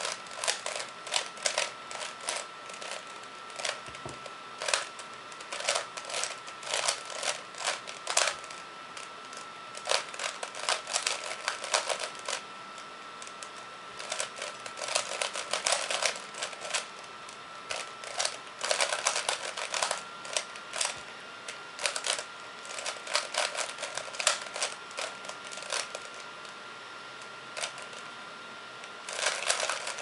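3x3 Rubik's cube being turned by hand: rapid bursts of plastic clicks and rattles as its layers snap round, broken by short pauses. The clicking eases off for a few seconds near the end, then starts again.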